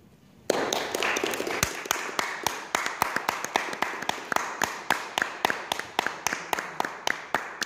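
Small audience applauding, starting suddenly about half a second in. The clapping is densest at first, then thins out, leaving one close clapper's sharp claps at about four a second.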